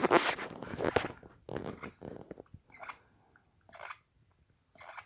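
Teeth grinding in sleep (bruxism): dense, rough crunching and scraping for about two and a half seconds, then three shorter, fainter grinds about a second apart.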